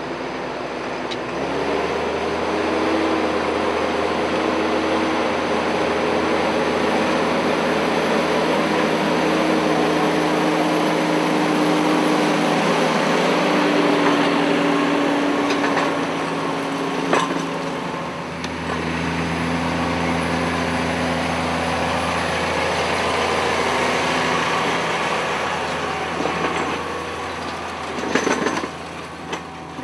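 Case IH tractor on rubber tracks pulling a cultivator through soil: the engine runs steadily under load over the noise of the tines and packer rollers working the earth. A single sharp click comes about 17 seconds in, and the sound turns more uneven near the end.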